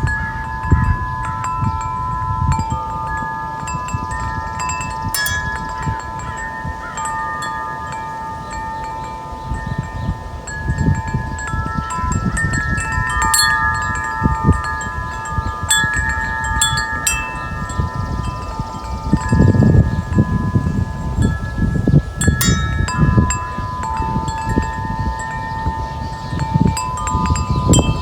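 Wind chime ringing in the breeze: notes of several different pitches struck at random intervals, each ringing on long and overlapping the others. Low wind rumble on the microphone swells in gusts underneath.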